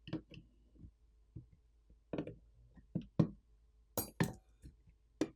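Irregular light metallic clicks and clinks of small screws and a screwdriver on a smartphone's metal frame, while T5 Torx screws are taken out during a teardown. The loudest clinks come about three and four seconds in.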